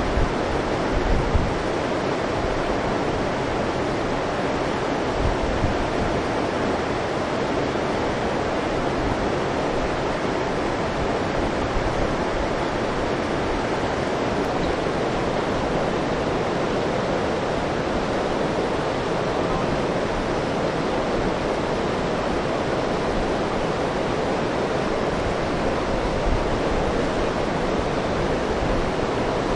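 Steady, even rush of a fast-flowing mountain river, with a few low bumps on the microphone about a second in.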